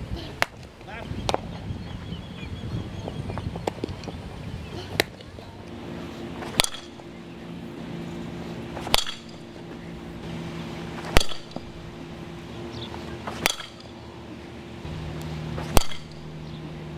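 A fastpitch softball bat hits pitched balls five times, about every two and a half seconds, each a sharp crack with a short ringing tail. Fainter knocks come in the first few seconds, and a steady low hum sits underneath from about six seconds in.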